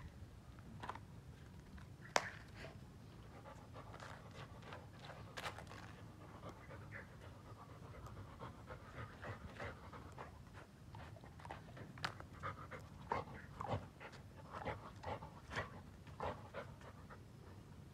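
A dog panting in quick, short breaths close by while it sniffs at a crab, the breaths coming faster and louder in the second half. A few sharp clicks cut in, the loudest about two seconds in.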